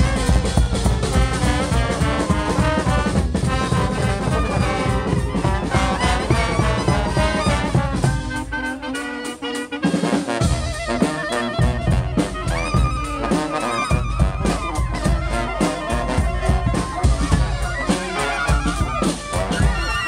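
A live street brass band plays a loud, driving tune, with trombones and saxophones over drums. About halfway through, the drums drop out for a couple of seconds, leaving the horns alone, and then they come back in.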